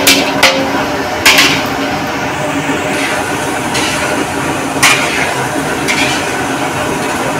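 Food deep-frying in a large iron wok of hot oil with a steady sizzle, and a perforated metal skimmer clinking sharply against the wok a few times.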